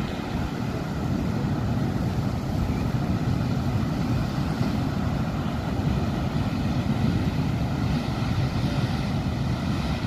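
Wind rumbling and buffeting on the microphone over the steady wash of sea waves breaking on rocks.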